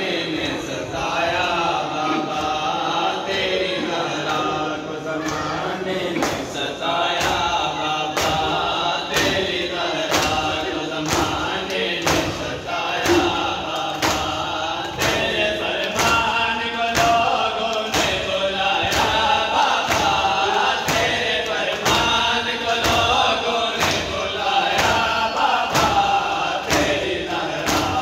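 Chest-beating (matam): a crowd of men slapping their bare chests with open hands in a steady beat, a little more than once a second, under men's voices chanting a mourning lament together.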